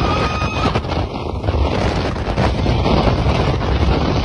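Strong wind buffeting the microphone on a ski lift: a loud, dense low rumble that never lets up. A brief high-pitched tone rises and holds for under a second at the start.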